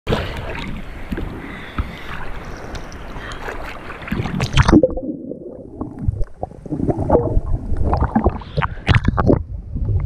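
Sea water sloshing and splashing over a GoPro 5 in its waterproof housing at the surface, then the camera goes under about five seconds in. The sound turns muffled, with low bumps and gurgles of water against the housing.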